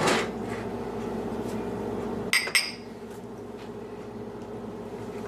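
Two quick ringing clinks of small ceramic ramekins being handled, about halfway through, over a steady low hum.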